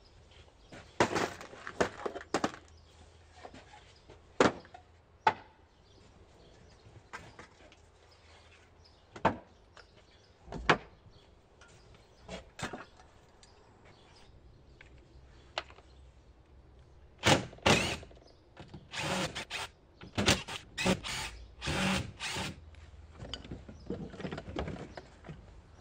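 Scattered knocks and clatter of wooden boards and tools being handled and set down on a plastic workbench, with a busier run of handling noise about two-thirds of the way in. The circular saw is not running.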